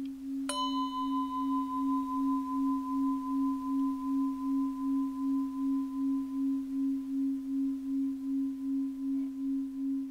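Singing-bowl tones: a steady low tone that pulses slowly throughout, and a higher bell-like tone struck about half a second in that rings on, slowly fading.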